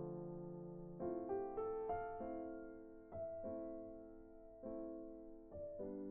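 Background music: a slow electric-piano melody, single notes and chords struck about every second and left to ring out.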